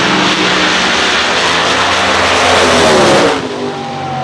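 Two drag race cars running at full throttle down the strip, a loud engine noise whose pitch climbs before it drops away sharply a little past three seconds in. Spectators then yell and whistle.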